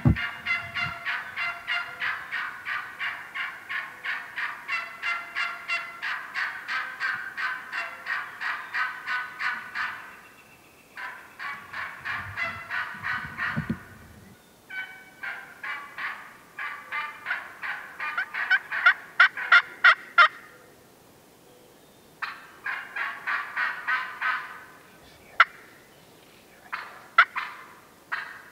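Wild turkey hen yelping in long runs of about three yelps a second, with short pauses between runs and a few sharp single notes near the end.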